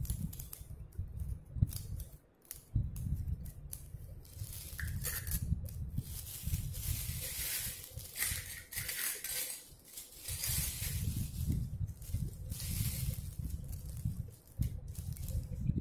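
Plastic toy dishes, cups and lids being picked up and set down, giving scattered light clicks and clatters over a low, uneven rumble.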